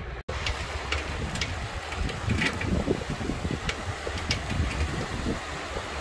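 Wind buffeting the microphone while riding a bicycle, a steady low rumble with scattered short clicks, and a brief dropout about a quarter of a second in.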